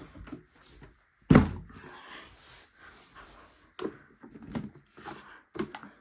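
Hard plastic clunks as a Numatic Henry vacuum's motor head is handled and fitted onto its tub: one loud thud about a second in, then several lighter knocks and scrapes.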